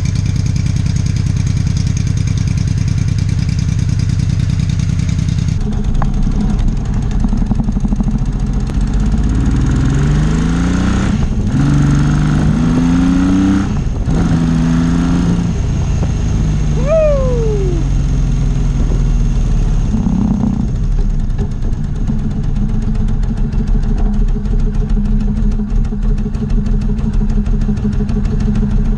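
A vehicle engine running loudly. Around the middle it revs up in several short rising steps, then settles back to a steady run.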